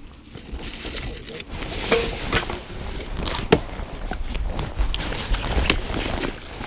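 Irregular footsteps, knocks and clothing rustle on a bass boat's deck as a person gets up and moves forward, with rumbling handling noise on a body-worn camera.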